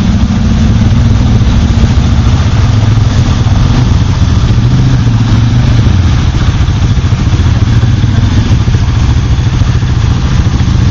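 Suzuki KingQuad ATV engines running at idle and low speed, a steady, loud low rumble with no revving.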